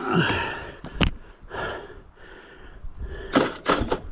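A dirt bike rider breathing hard while the bike's engine is off, with a sharp knock about a second in and a quick run of knocks near the end.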